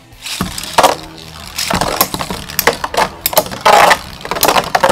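Storm Pegasus and Lightning LDrago Metal Fight Beyblades launched into a plastic stadium and clashing. A run of sharp metal clacks and rattles as the spinning tops hit each other and the stadium, loudest about four seconds in.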